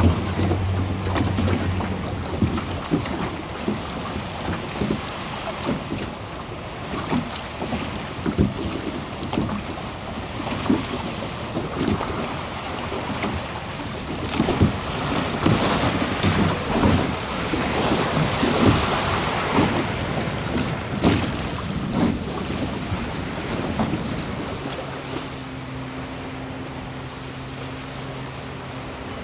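Water splashing and irregular knocks as a small boat is rowed with wooden oars, with waves and wind buffeting the microphone. A low steady hum of held tones comes in near the end.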